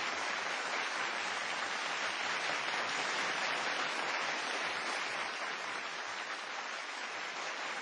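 Audience applauding steadily, easing off slightly in the second half.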